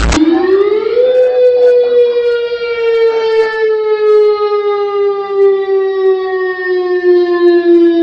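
Civil-defence-style siren sounding as an emergency alarm. Its tone slides quickly upward in the first second, then slowly falls in pitch. Electronic music cuts off abruptly just before it begins.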